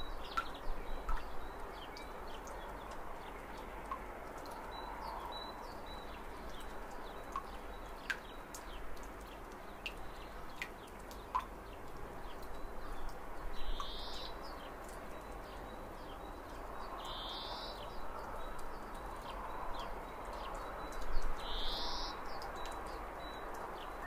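Birds chirping over a steady rushing hiss of flowing water, with one bird giving the same short call three times, a few seconds apart, in the second half.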